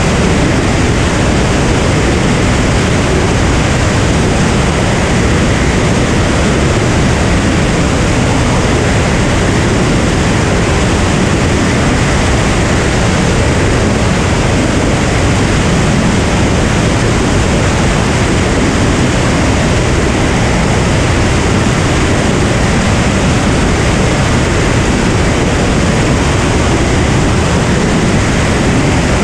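Steady rush of wind and engine-and-propeller drone from a Cirrus SR22 in cruise flight, picked up by a microphone on the outside of the aircraft.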